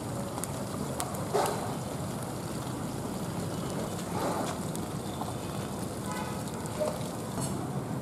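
Whole micro eels deep-frying in a wok of hot oil: a steady sizzle with a few louder pops and crackles.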